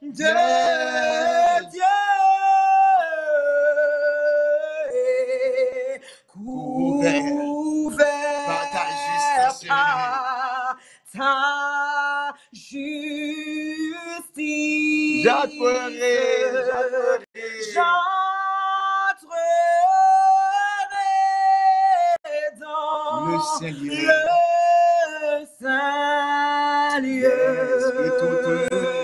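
A man and a woman singing a French hymn together, long held notes broken by short pauses for breath.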